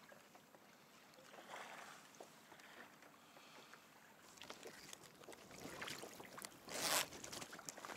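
Faint water lapping against a kayak hull, with light wind on the microphone. From about four seconds in come rustling handling noises and clicks, with one brief loud noise about seven seconds in.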